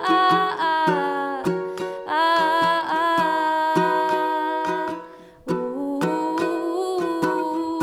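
Live music: a strummed string instrument playing chords between sung lines, with a brief break about five seconds in.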